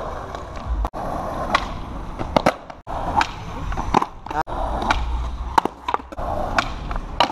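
Skateboard wheels rolling over street asphalt, with several sharp clacks of the deck and tail hitting the road as tricks are tried. In one attempt the board lands without the rider and clatters away across the street.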